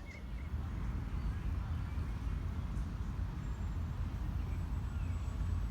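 Steady low outdoor rumble, with faint bird chirps and a thin high bird note over it.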